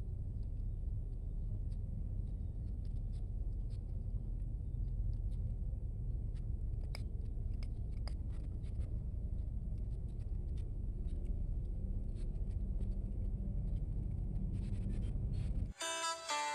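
Kittens eating dry cat food, with small, scattered crunching clicks over a steady low rumble. Near the end the rumble cuts off and plucked-string music begins.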